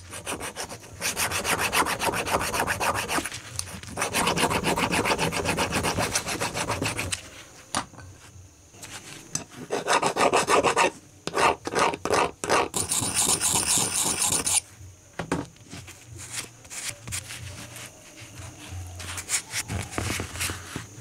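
Small hand file scraping a metal hex nut in rapid back-and-forth strokes. The strokes come in two long runs with a quieter pause between them, and the filing thins out to soft, occasional rubbing near the end.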